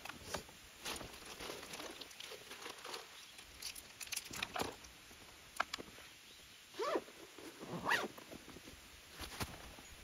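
Zipper on a canvas carry bag pulled shut, two quick rising strokes near the end, after rustling and small clicks of gear being packed into the bag.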